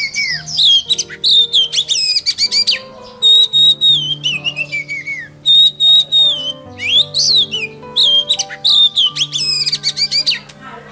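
Oriental magpie-robin (kacer) song: phrases of high clear whistles that slide down in pitch, mixed with rapid chattering notes, with short breaks between phrases. It plays over background music with steady sustained low notes.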